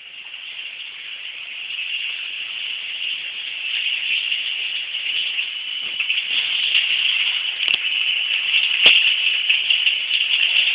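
Shower water running in the bathtub, a steady hiss that grows louder, with two brief clicks near the end.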